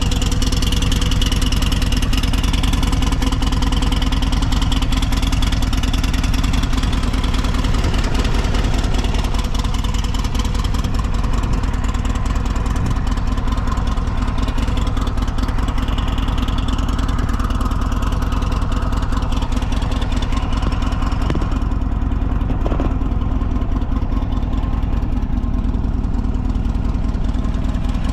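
Buell XB12SS Lightning's air-cooled 45-degree V-twin running steadily, a low even rumble; the seller describes the engine as very quiet with no abnormal noise.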